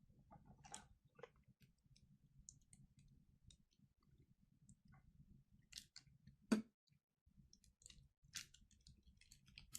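Faint, scattered clicks and crinkles of a pregnancy test's packaging being handled and opened, with one sharper click about six and a half seconds in.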